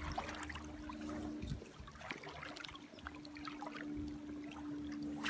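River water splashing and trickling in small irregular bursts as a wading angler moves through it, over a steady low hum.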